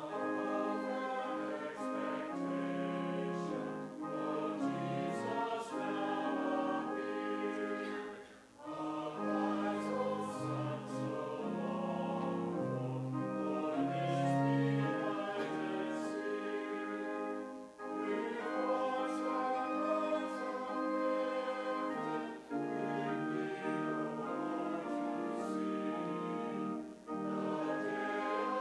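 Church choir singing in long held phrases, with brief pauses between phrases every four to five seconds.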